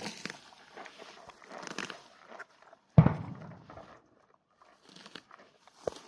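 Footsteps on a walk, irregular and fairly quiet. About three seconds in there is one sudden loud thump with a deep low end that dies away over about a second, and a short sharp sound comes just before the end.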